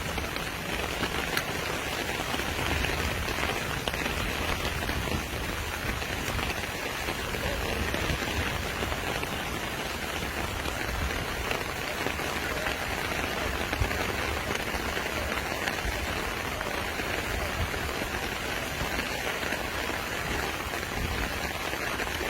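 Steady hiss of heavy rain falling, even and unbroken, with a low rumble underneath.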